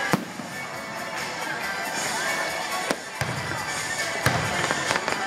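Fireworks shells bursting in sharp bangs over steady music. There is one bang right at the start, another about three seconds in, then several in quick succession near the end.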